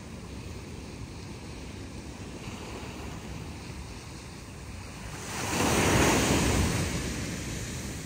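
Small ocean waves breaking and washing up a sandy beach in a steady surf wash. One louder wave surges in about five seconds in and fades away.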